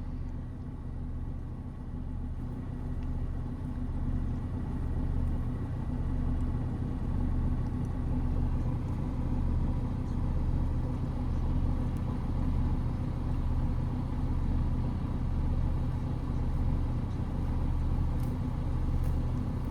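Steady low drone of an engine running at idle, with a slight even pulsing.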